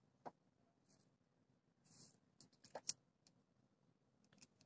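Near silence, broken by a few faint clicks and taps, several close together between about two and a half and three seconds in.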